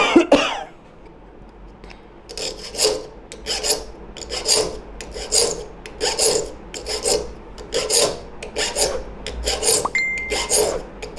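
A hand file rasping across the steel teeth of a hand saw as it is sharpened, in even back-and-forth strokes a little more than one a second, starting about two seconds in. A short knock comes at the very start.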